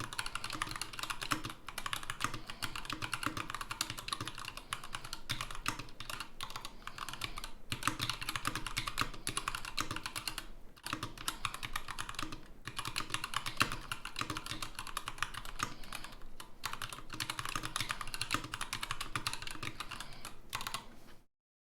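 Continuous fast typing on a Varmilo Sword 87 tenkeyless mechanical keyboard with Tealios linear switches, a stainless steel plate and dye-sub keycaps: a dense, even clatter of keystrokes broken by a few brief pauses. It stops abruptly near the end.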